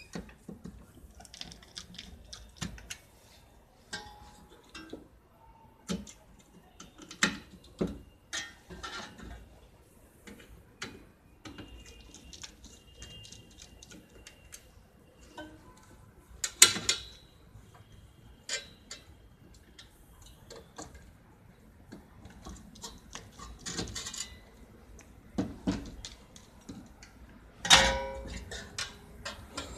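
Screwdriver working screws out of an HP computer power supply's sheet-metal casing: scattered small clicks and metal clinks as screws turn and parts are handled, with two louder knocks, about 17 seconds and 28 seconds in.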